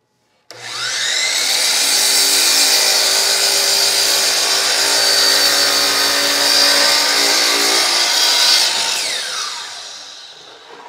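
Circular saw spinning up about half a second in, running and cutting through a wooden beam for about seven seconds, then winding down with a falling whine after it is released.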